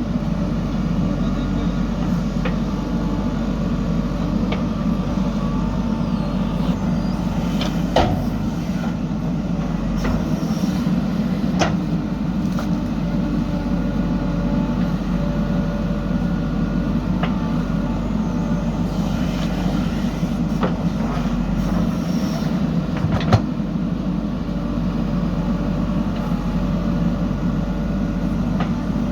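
Diesel engine of a JCB backhoe loader running steadily while it works, with a few sharp knocks, the loudest about two-thirds of the way through.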